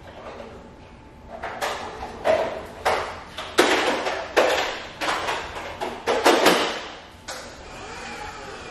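Someone handling things in a kitchen: a quick run of about eight clattering, rustling bangs over five seconds, then it dies down.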